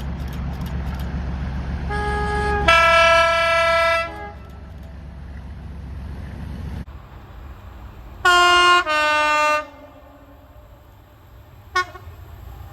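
Train horn sounding in several blasts. A short blast about two seconds in runs straight into a louder, longer one over the low rumble of the moving train, and the rumble stops abruptly. Two more blasts come about eight seconds in, then a brief toot near the end.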